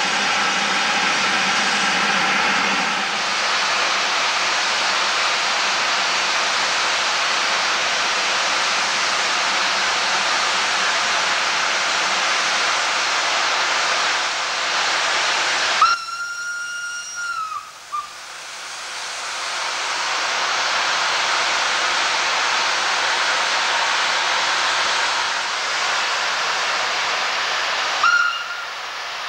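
Steam locomotive standing with a steady loud hiss of escaping steam. About halfway through, its steam whistle sounds one tone for about two seconds, and near the end it gives a second short toot.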